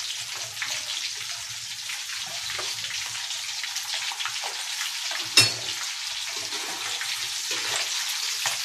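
Breaded chicken wings deep-frying in hot oil in an iron wok: a steady crackling sizzle. One sharp knock about halfway through.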